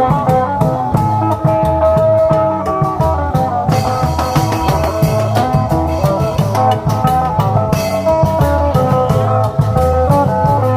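Isan klong yao long-drum band playing a lively procession tune: long drums beat a steady rhythm under cymbals and a melody instrument. From about four seconds in to about eight, a brighter, hissier layer joins.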